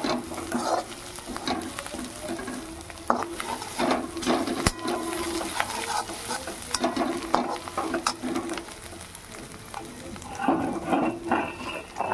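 Chopped onion, garlic and green chillies sizzling in oil in a steel kadhai, stirred with a metal slotted spoon that scrapes and clicks against the pan in repeated strokes.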